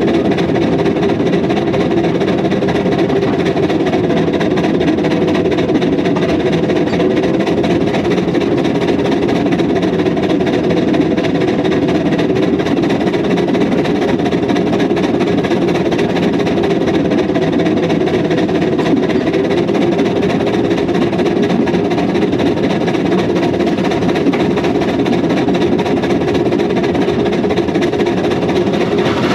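Narrow-gauge Hunslet steam locomotive running at a steady speed, heard from on the engine: a continuous, even running noise with steady tones.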